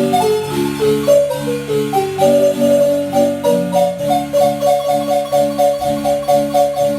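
Marimba music: struck wooden bars play a melody over repeated low bass chords. From about four seconds in the upper notes settle into a quick, evenly repeated figure.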